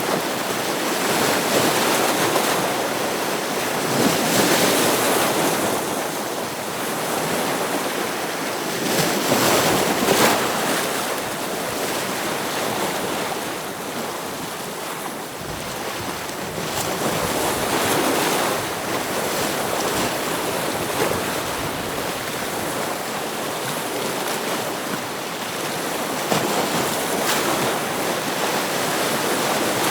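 Ocean waves breaking on rocks, a continuous wash of surf that swells with each breaking wave every few seconds.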